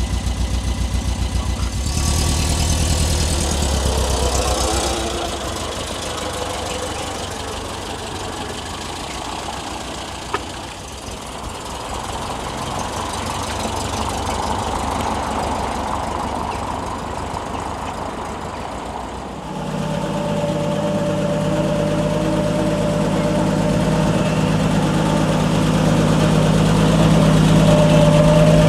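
Muscle-car V8 engines idling with a rhythmic, pulsing lope that fades down after the first few seconds. About two-thirds of the way through, a different, steadier engine note takes over and grows louder.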